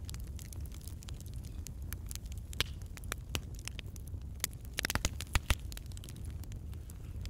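An egg tipped from a small glass dish into a glass mixing bowl, then sugar poured in from a glass, with a cluster of clicks and knocks about five seconds in. Scattered faint crackles and a low hum run underneath.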